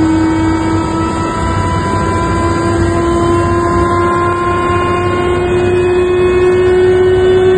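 Westland Lynx Mk7 helicopter's twin turboshaft engines and transmission heard from inside the cockpit: a loud steady whine, rising slowly in pitch as the engines wind up, over a low rumble.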